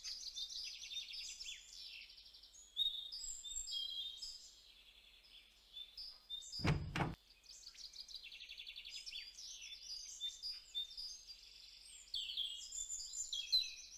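Birdsong ambience: small birds chirping and trilling, high and faint. About halfway through comes a single short knock as the wooden garden gate is pushed open.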